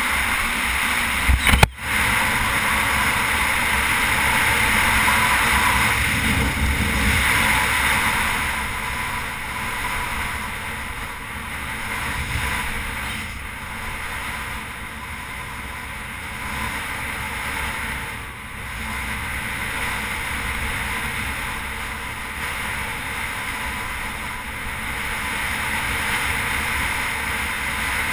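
Wind rushing over a helmet-mounted microphone while a Suzuki V-Strom 650 dual-sport motorcycle rides a sandy dirt road at speed, with the bike's engine and tyres as a low rumble underneath. A sharp click with a brief dropout comes about two seconds in.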